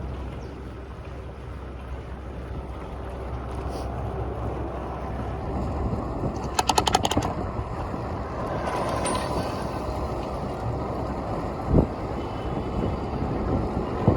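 Wind buffeting the microphone of a camera riding on a moving bicycle, with a steady rumble of city traffic beneath. A quick rattle of about eight clicks comes in the middle, and a single low thump near the end.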